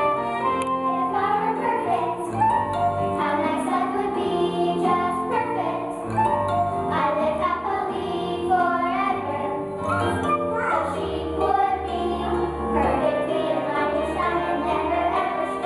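Song from a musical: a singing voice over instrumental accompaniment.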